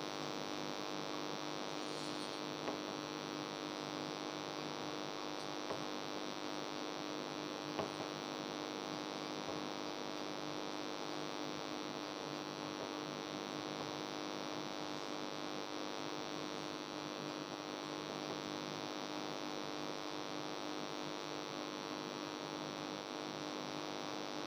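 Steady electrical hum made of many even, unchanging tones, with a few faint clicks about three, six and eight seconds in.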